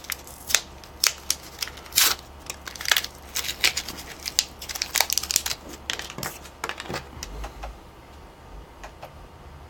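Handling noise of small wired connector parts: a quick, irregular run of sharp clicks and crinkles as a laptop power adapter tip and plug are handled and fitted together, thinning out after about seven seconds.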